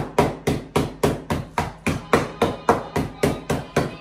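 Digestive biscuits in a sealed plastic bag being struck over and over with a wooden tool against a table, about three to four even blows a second, crushing them into crumbs.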